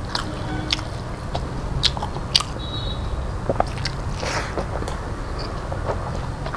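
Close-miked chewing, with sharp wet mouth clicks and smacks, as a man eats a handful of rice by hand, over a steady low hum.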